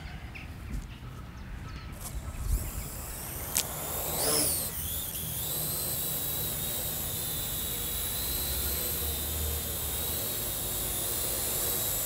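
Parrot AR.Drone 2.0 quadcopter's four electric motors and propellers spinning up for takeoff, then a steady high whine as it flies. The pitch dips and rises about four seconds in, with a sharp click shortly before.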